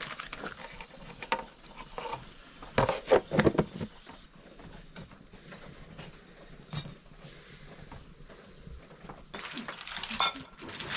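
Kitchen utensils and pots clinking and knocking: a cluster of sharp clatters about three seconds in, a single one near seven seconds and more near the end, over a steady high-pitched hiss.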